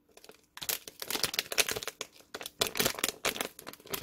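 Thin plastic packet of a soup-stock tea bag crinkling as it is handled, a quick dense rustling that starts about half a second in.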